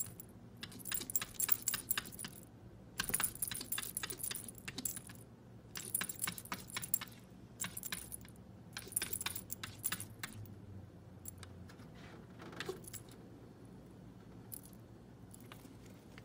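Metal tags on a cat's collar jingling in repeated short bursts as the cat moves and paws at the window, growing fainter and sparser in the last few seconds.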